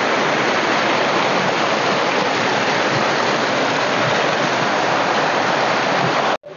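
Small waterfall splashing over rocks: a steady rush of falling water that cuts off suddenly near the end.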